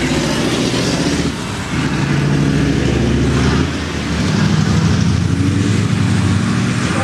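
Race truck's diesel engine running hard as it passes through a corner. The engine note drops briefly twice, about a second and a half in and again near four seconds, then picks up again.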